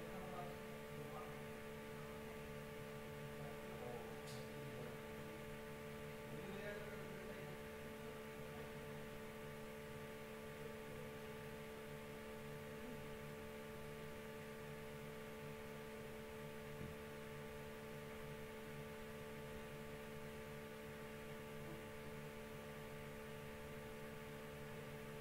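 Steady electrical hum of several fixed tones over faint background hiss, with no other activity.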